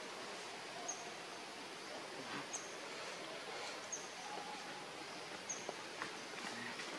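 Outdoor forest ambience: a steady hiss with a bird repeating one short high note about every second and a half, and a few faint rustles.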